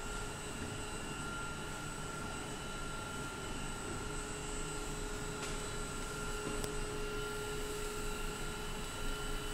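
Trioliet feeding robot running: a steady electric motor hum with a constant whine. A faint click or two sounds partway through.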